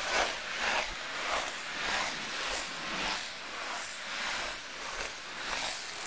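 Ice skate blades scraping and gliding over ice in a steady rhythm of strokes, a little under two a second.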